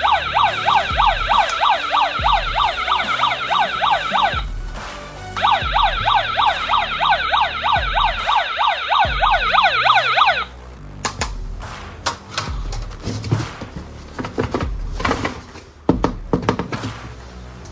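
A toy's electronic sound effect: a rapid warbling siren-like tone, about five sweeps a second, in two runs of about four and five seconds with a short break between. Background music with a steady low beat runs underneath, and some clicks follow near the end.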